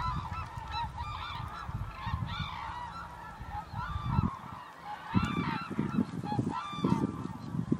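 A flock of hooded cranes calling, many short honking calls overlapping without a break. A low rumbling noise runs underneath and grows heavier in the second half.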